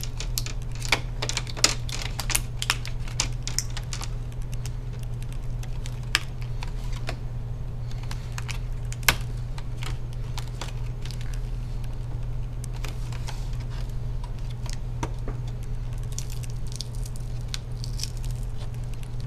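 Plastic lid bezel of an HP 15 laptop being pried off the screen by hand: a run of small plastic clicks and snaps as it comes away from the lid, the sharpest about nine seconds in, over a steady low hum.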